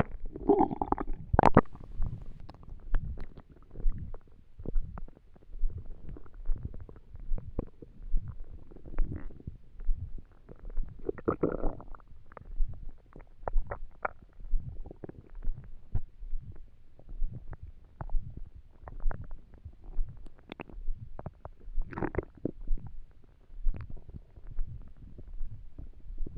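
Human stomach gurgling and rumbling on an empty stomach: a run of small pops and clicks, with longer watery rumbles near the start, in the middle and near the end.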